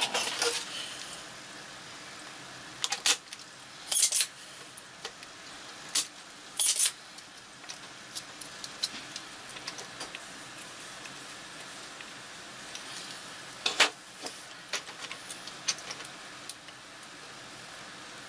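Scattered light clicks and clinks from a soldering iron and solder being worked at the pins of a circuit board, over a faint steady hiss.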